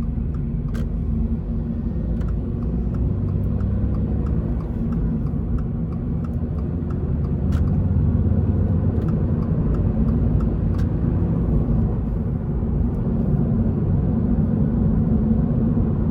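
Toyota GR86's 2.4-litre flat-four engine running under way with steady low road and tyre rumble, growing slightly louder about eight seconds in.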